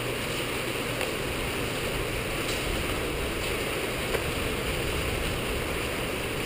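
Steady rain and wind noise, with a few faint clicks as hands handle a small RC helicopter.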